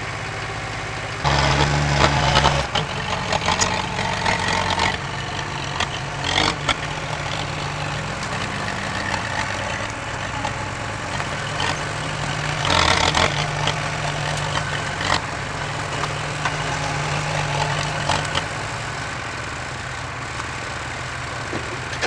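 Diesel engines running: a skid steer idling close by while a small crawler dozer works and moves nearby. The engine sound swells for a couple of seconds a little over a second in, and again for several seconds past the halfway point.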